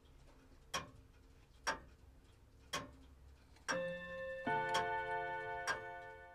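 A clock ticking about once a second. About three and a half seconds in, a two-note doorbell chime sounds, a ding and then a lower dong, and rings on, fading.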